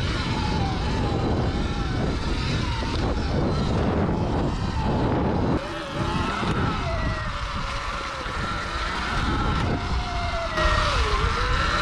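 Sur-Ron electric dirt bike riding off-road: the motor's whine rises and falls in pitch with speed over a loud, steady rush of riding noise. The noise eases briefly about halfway through.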